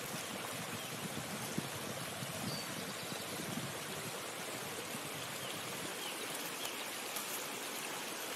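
Shallow stream water running over rocks in a steady, even babble.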